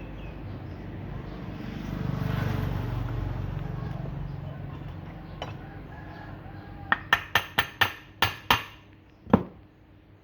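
Tools knocking on metal parts: a quick run of about seven sharp metallic taps, then one heavier knock near the end. Before them, a low rumble swells and fades in the first few seconds.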